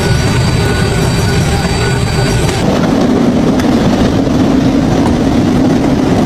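Loud machinery running with a continuous clattering rumble; about two and a half seconds in the sound changes and a steady low hum sets in.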